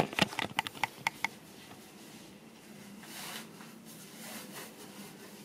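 A few light clicks and knocks in the first second, then faint rustling of clothing fabric as a skirt is shifted round and adjusted.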